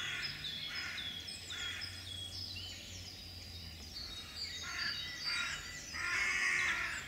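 Small songbirds singing in woodland: many short, high chirping notes, often falling in pitch, overlapping, with a louder, busier stretch near the end.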